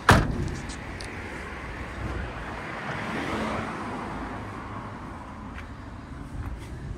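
A single loud bang of a Peugeot Expert van door right at the start, followed by the steady noise of road traffic that swells for a couple of seconds, like a car passing by, and then fades.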